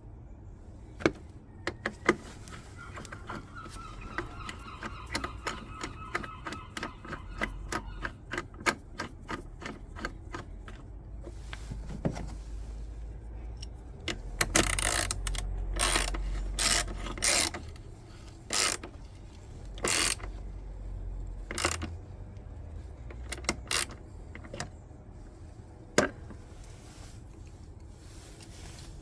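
Socket ratchet wrench clicking in a rapid even run as it is worked. Later come several louder, longer rasping bursts and a single sharp click.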